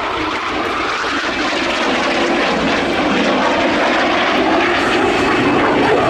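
Lockheed CF-104D Starfighter's J79 turbojet running at taxi power, a steady, continuous jet roar that grows slightly louder as the aircraft rolls closer.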